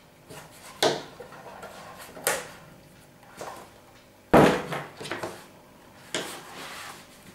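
A large leather piece being handled on a cutting mat: about six short rustling, flapping handling sounds, with the loudest, a hard thump, about four and a half seconds in as the piece is laid down flat.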